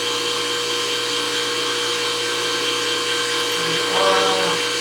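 Steady electrical-mechanical hum and whine of a powered-up CNC knee mill and its control cabinet, with the lubrication oil pump running, holding an even level with two constant tones.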